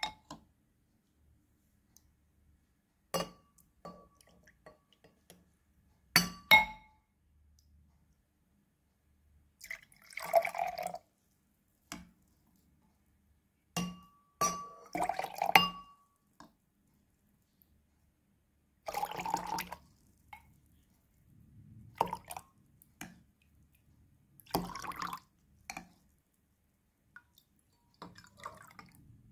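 A ladle scooping hibiscus drink from a bowl and pouring it into a wine glass, several times over. Sharp clinks of the ladle against the bowl and the glass rim, some with a short glassy ring, alternate with spells of liquid pouring and trickling, each about a second long.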